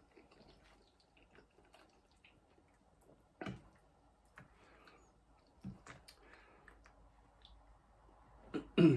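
A fork clicking and scraping in a foil tray of pasta bake, with quiet chewing. A few louder knocks stand out, the loudest near the end.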